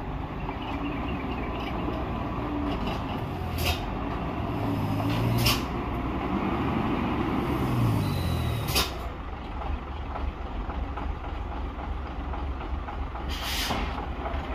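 Heavy diesel truck engine running and revving up twice in the first nine seconds, with four sharp air-brake hisses, the last one longer.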